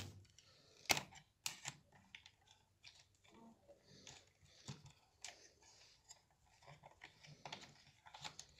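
Scattered small clicks and rustles of electrical wires being twisted together and fitted into a contactor's screw terminal by hand, with a couple of sharper clicks about a second in and a small cluster near the end.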